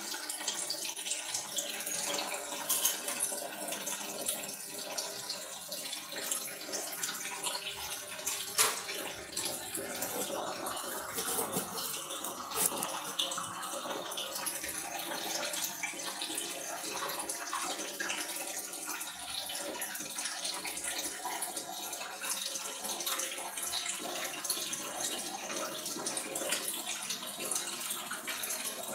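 Water running and splashing steadily, with scattered clicks and knocks of things being handled.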